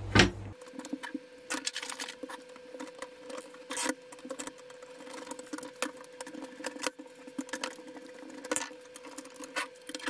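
Screwdriver turning small screws out of a steel drive-rack frame, with irregular small clicks and taps of the metal and plastic parts being handled.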